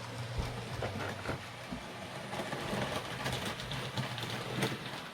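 Roco H0 model DB class 212 locomotive running with its goods wagons: a steady low motor hum with scattered light clicks of wheels over the track.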